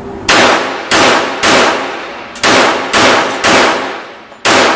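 Seven pistol shots fired in a string, about half a second apart, with a longer pause after the third shot and before the last; each report rings out in reverberation.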